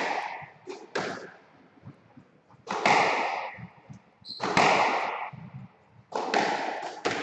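Squash ball strikes, each a sharp hit ringing on in the court, coming about every two seconds.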